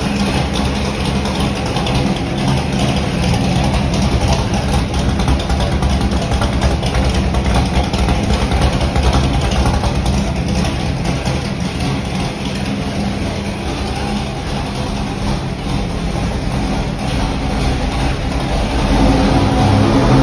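Fuel-injected 600-cubic-inch big-block Chevrolet V8 running steadily at low revs on an engine dynamometer. Near the end the revs pick up and it gets louder.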